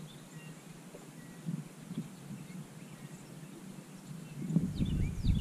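Small backyard birds chirping, faint and scattered at first, then a quick run of sharp descending chirps in the last second. A low rumble comes in at the same time and is the loudest thing there.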